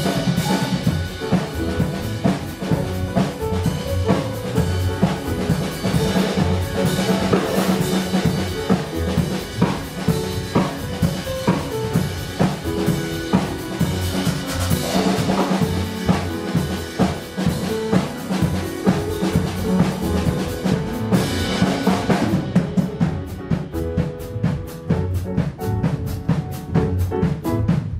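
Band music with a drum kit keeping a steady beat over bass and other pitched instruments; the sound turns duller about three-quarters of the way through.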